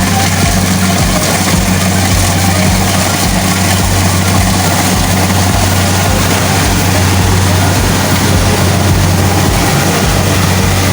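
Rice harvester's engine running steadily: a loud, even drone with a regular low pulse.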